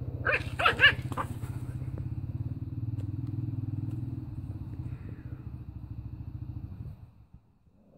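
A puppy yaps sharply three or four times in the first second, over a long, low, throbbing growl that stops near the end.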